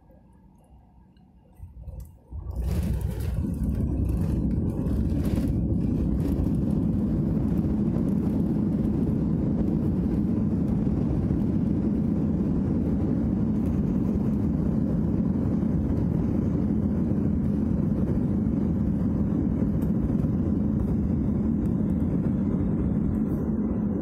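An airliner touching down on the runway, heard from inside the cabin. About two seconds in there are a few knocks, then a loud, steady rumble as the aircraft rolls out with its spoilers up, easing off near the end.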